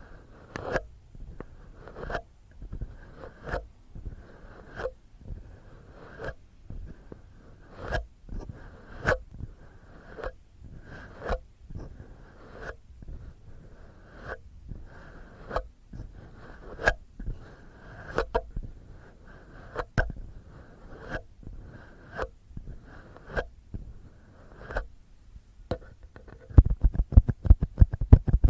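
Fingers and fingernails scratching and rubbing at the ear of a binaural dummy-head microphone, in repeated short strokes about one to two a second. Near the end the strokes turn fast and louder, several a second.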